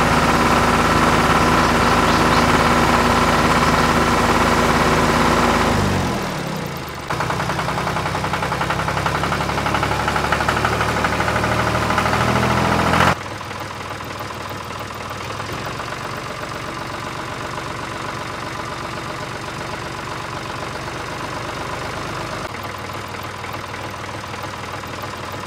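Diesel-tractor engine idling sound effect of a remote-control toy tractor, a steady low drone. About six seconds in it slides down in pitch and fades, comes back a second later at a different pitch, and about thirteen seconds in it switches suddenly to a quieter, softer running sound.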